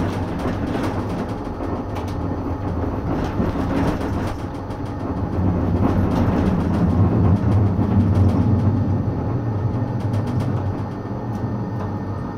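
Tram running on street track, heard from aboard: a steady low motor hum with wheel-on-rail noise that grows louder in the middle, and scattered clicks and knocks from the wheels on the track.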